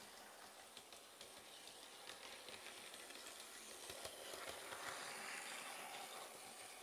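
Bachmann Class 20 model diesel locomotive running on model railway track: a faint whirr of its motor and wheels on the rails with small clicks, growing louder about four seconds in as it passes close by, then easing off.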